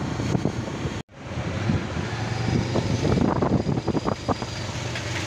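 Motorcycle engine running steadily on the move, with wind rushing over the microphone. The sound cuts out abruptly for a moment about a second in, then carries on.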